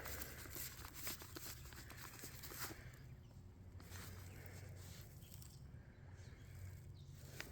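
Faint rustles and light taps of a cardboard firework cake being handled and turned over, mostly in the first few seconds, over a low steady hum.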